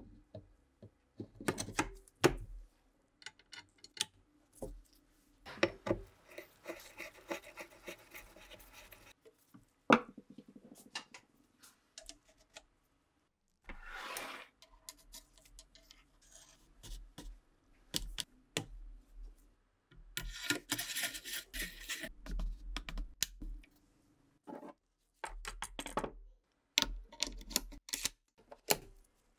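Mosin-Nagant rifle being handled and reassembled: irregular clicks and knocks of metal parts being fitted, with stretches of scraping and rubbing, and the bolt handled near the end.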